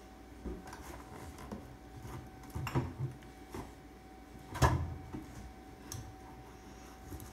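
Scattered knocks and clatters of objects being handled and set down in a kitchen, the loudest about four and a half seconds in, over a faint steady hum.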